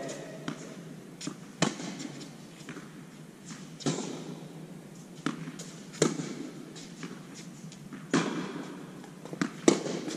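Tennis rally: a racquet strung with Signum Pro Firestorm polyester string and the opponent's racquet striking the ball in turn, the strokes about every two seconds, with the ball's bounces between them. The hits echo in the large indoor hall.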